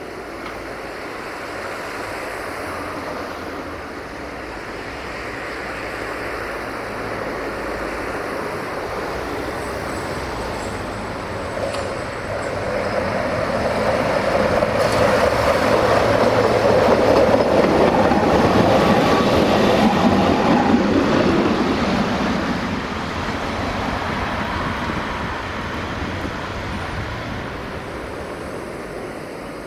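Tatra T4D tram with a B4D trailer running past on its rails, growing louder as it approaches, loudest through the middle, then fading away. Street traffic runs underneath.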